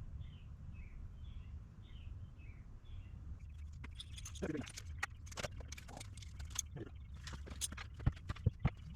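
A bird outside chirps over and over, a couple of short calls a second, for the first three seconds. From about three and a half seconds in, close-by clicks, knocks and rustling as parts and packaging are handled.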